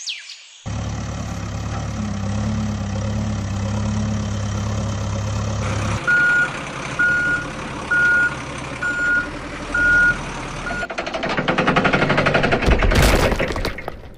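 Dubbed heavy truck sound effects: a diesel engine running steadily, then a reversing alarm beeping about once a second, then a rising rattling rush as a dump truck tips its load of rocks.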